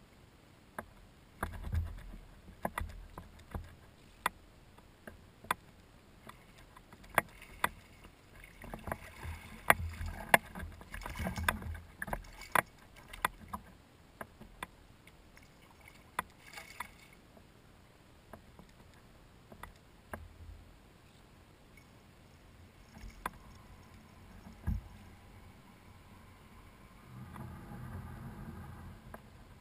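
Irregular sharp clicks and knocks of fishing tackle against a plastic kayak while a hooked bass is fought, with bursts of splashing from the fish at the surface in the middle. Near the end there is a softer wash of water and handling noise as the bass is lifted to the kayak.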